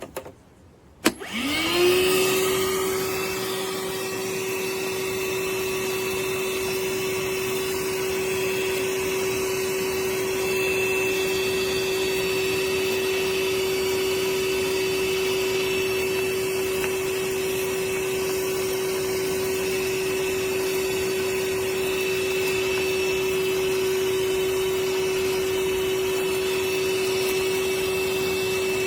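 DeWalt DCV580H 20V MAX cordless wet-dry vacuum switched on with a click about a second in, its motor spinning up with a rising whine and then running steadily with a high-pitched whine over the rush of air.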